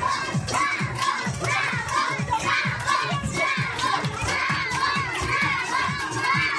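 Children shouting and cheering while an audience claps along to music with a steady beat of about three strokes a second.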